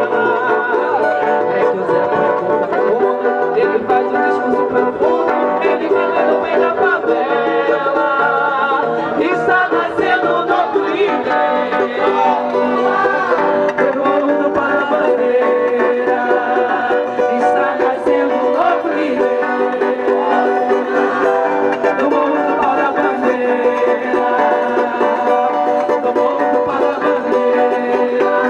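Live band playing samba music, with plucked string instruments prominent in a steady, continuous passage.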